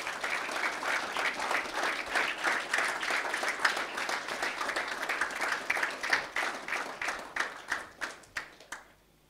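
Audience applauding, thinning out to a few scattered claps near the end before stopping.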